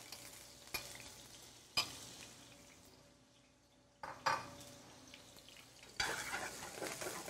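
Bacon frying in hot olive oil in a stainless sauté pan, a faint sizzle with a few sharp clinks of a bowl and utensil against the pan. About six seconds in the sizzle gets louder and crackles as the bacon is stirred.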